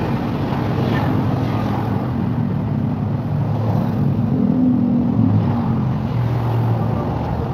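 Road traffic going by: small motorcycles and cars passing, with a minivan passing close and loudest a little past the middle.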